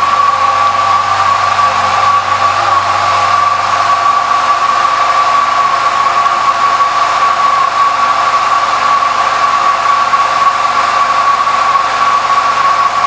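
2008 Yamaha FJR1300A's inline-four engine idling steadily, with a constant high hum over the running noise; the low engine note fades about four seconds in.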